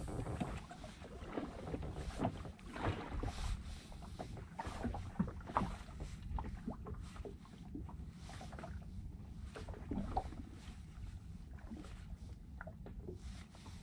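Small waves lapping against an inflatable boat's tubes in irregular soft knocks and splashes, over a steady low rumble of wind on the microphone.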